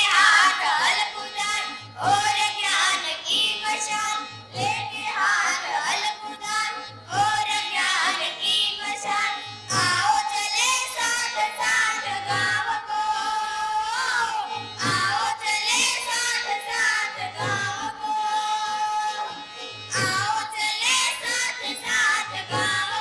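Recorded song: a high singing voice carries a melody over instruments, with a low drum beat about once a second.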